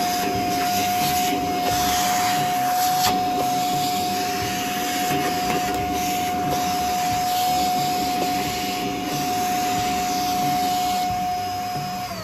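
Vacuum cleaner running steadily with a high motor whine and rushing hiss as its hose nozzle sucks up metal filings and grit, with a sharp tick about three seconds in. The motor winds down at the very end.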